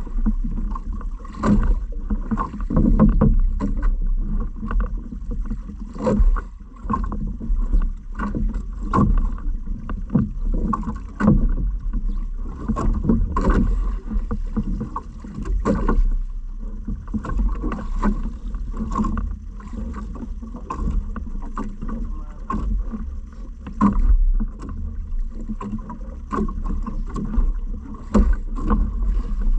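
Water sounds and irregular knocks from a small boat on the water, over a steady low rumble of wind on the microphone.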